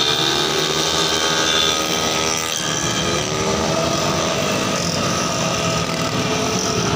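Several 115 cc automatic scooter engines revving as the bikes pass one after another through a corner on a warm-up lap. Their pitch slides down as each one goes by, with new engines coming in behind.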